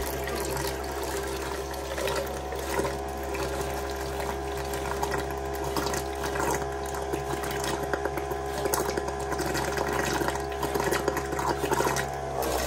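Small electric water pump humming steadily while water runs from a faucet-mounted filter into a plastic jar.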